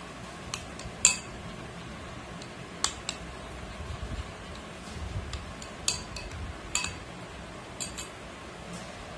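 A metal spoon stirring yogurt in a glass bowl, clinking against the glass: several sharp clinks scattered through, the loudest about a second in, with soft stirring between them.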